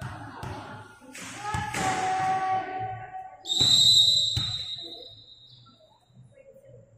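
A volleyball being struck several times with sharp thuds amid spectators' shouts. Then a referee's whistle blows once, starting about three and a half seconds in and fading over a second or so, the signal that the rally is over.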